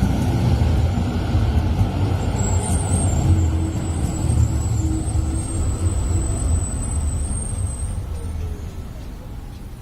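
Tram 2000 running on its rails, a steady low rumble with a thin high squeal from about two seconds in until about eight seconds in; the rumble fades toward the end as the tram moves away.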